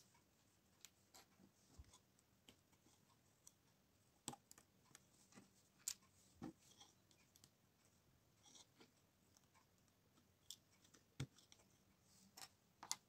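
Plastic LEGO bricks being handled and pressed together: sparse, scattered clicks and taps of small plastic pieces, a few sharper snaps among quieter ones.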